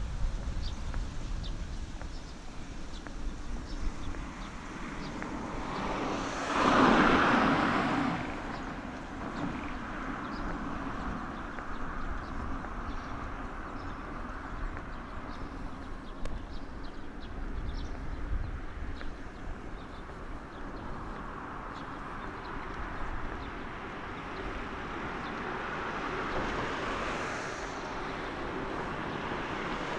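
A car passing close by about seven seconds in, its tyre and engine noise swelling quickly and then fading, over steady outdoor background noise. A second vehicle goes by more quietly near the end.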